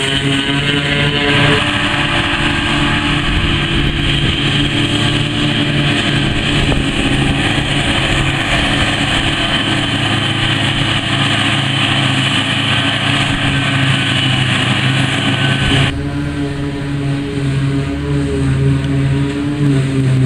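John Deere self-propelled forage harvester and the tractor beside it running steadily while chopping grass, a loud engine drone under a dense hiss of crop being cut and blown. About sixteen seconds in the sound changes abruptly to a quieter, lower engine hum without the hiss.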